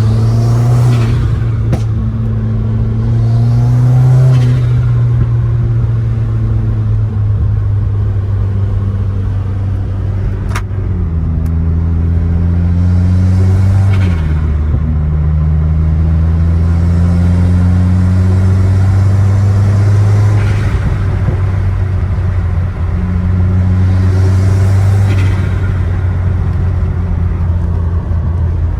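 Subaru WRX's turbocharged flat-four engine pulling under acceleration, its pitch climbing and then dropping as it shifts. Several times a short rush of air comes from the aftermarket Boomba bypass valve venting boost through the open COBB intake.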